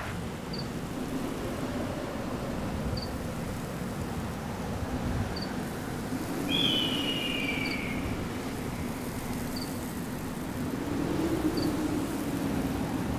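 Desert ambience: a steady low wind rumble, with a faint short high chirp about every two seconds and one long falling bird cry about halfway through.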